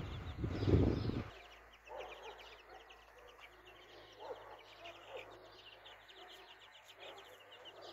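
Brood of chicks peeping in a steady rapid chatter, with a hen giving occasional low clucks among them. A loud low rumble fills the first second or so, then stops.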